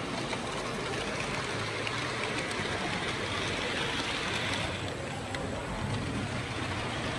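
Steady background noise of a busy exhibition hall: a low murmur of visitors' voices mixed with general room noise. For a second or two in the middle it turns louder and more hissy.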